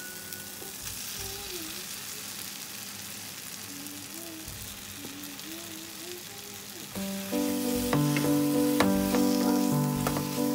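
Onion-tomato masala sizzling in oil in a non-stick frying pan. About seven seconds in, background music with mallet-like notes comes in and becomes the loudest sound, with the clicks of a wooden spatula stirring the fried eggplant and potatoes in the pan.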